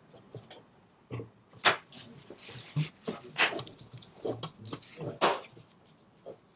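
A spatula stirring and pressing thick choux pastry dough against the sides of a pot: soft squishy pushes and scrapes at an uneven pace, with three louder scrapes about a second and a half apart, the stage where the paste is cooked over the heat.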